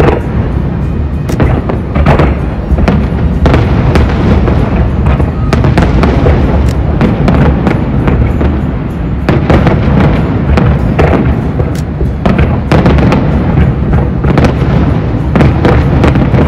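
Fireworks display: a continuous barrage of aerial shell bursts, many sharp bangs one after another over a steady low rumble.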